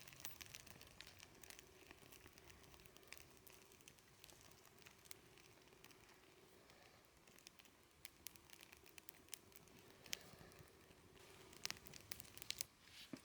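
Faint, scattered crackles and snaps of a small campfire being started with birch-bark tinder and twigs, coming more often near the end.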